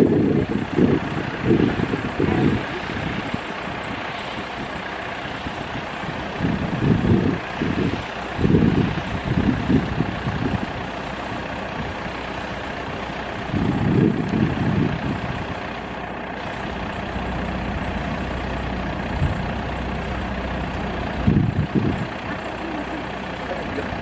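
Maxxi Bimo Xtreme 2.0 rice combine harvester's engine running steadily as the machine is driven down off a truck and away, with irregular low rumbles that come and go several times.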